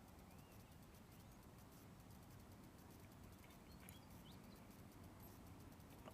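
Near silence: faint outdoor background with a few brief, faint high chirps and a single small click near the end.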